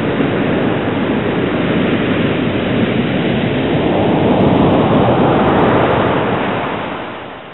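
Steady rushing noise of a boat under way, its wake churning behind the stern, with no clear engine tone; it fades out near the end.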